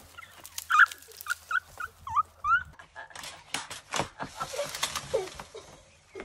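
A run of short, high yelps, then a man crashing into a leafy hedge, with a few seconds of leaves and twigs rustling and snapping.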